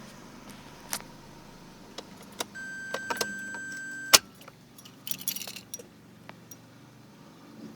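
Clicks and handling noises in a car, over a low steady hum. Partway through, a steady electronic warning beep sounds for about a second and a half and stops with a sharp click. Car keys jangle shortly after.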